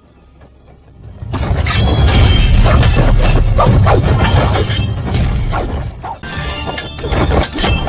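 Near quiet for about a second, then a sudden loud run of crashing, shattering impacts over music, thick with sharp hits.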